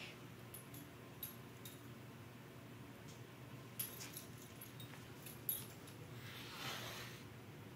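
Shetland sheepdog puppy and kitten scuffling on a hardwood floor: faint scattered clicks and light metallic tinkles, and a short breathy rush lasting about a second near the end.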